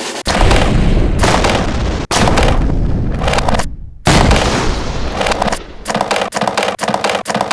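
Three loud explosion booms, each dying away over a second or two, then a rapid string of gunfire-like shots near the end: edited-in explosion sound effects for water-balloon bombs bursting.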